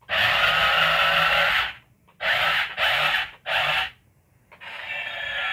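Small electric motors of a toy RC transforming robot car whirring in four short bursts as it drives. Near the end, a steadier sound with gliding tones begins as it starts to change into a robot.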